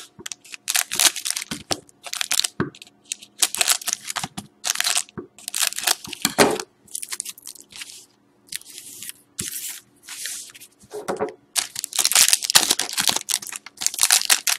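Foil trading-card pack wrappers being cut with scissors and torn open, a rapid, irregular run of crinkling and tearing rustles with short pauses between them.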